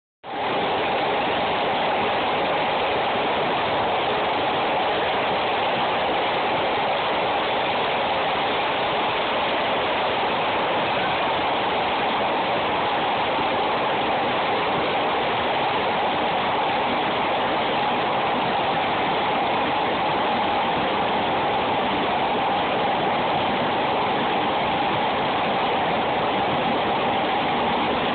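Steady noise of a Chicago 'L' rapid-transit car in motion, heard from inside the car: an even rush of wheels and running gear with no separate clacks or voices.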